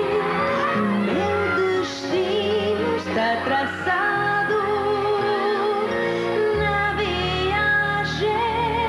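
A woman singing a song into a handheld microphone over an instrumental backing track, with vibrato on her held notes.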